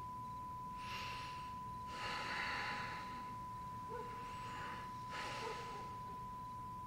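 Quiet heavy breathing, about four deep breaths, over a steady high-pitched test tone from a television showing a test card.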